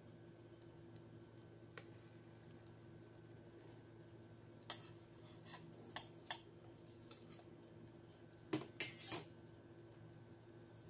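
Metal spatula clicking against a frying pan and steel plate as raw dough rounds are lifted and laid on the pan: a handful of sharp clinks, the loudest a quick run of three about three quarters through, over a faint steady low hum.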